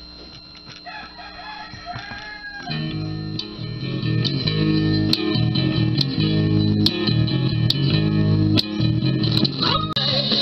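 Guitar-and-bass music played from a USB stick through a Hug amplified speaker, under test after repair for weak sound output. The volume rises as the knob is turned up, and the bass comes in strongly about three seconds in.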